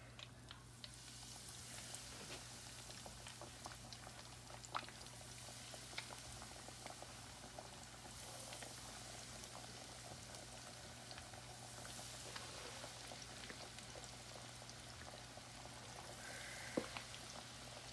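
Hot oil in a cast-iron pot sizzling and bubbling steadily as cornmeal-coated catfish pieces are lowered in to deep-fry, with a few sharp pops here and there.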